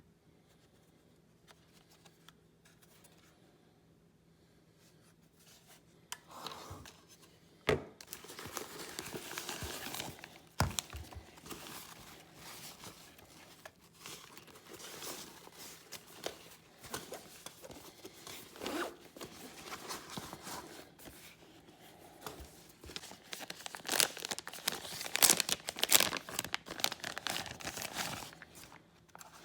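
Packaging being crinkled and torn by hand, in irregular bouts with a few sharp clicks; it starts about six seconds in after near silence and is loudest near the end.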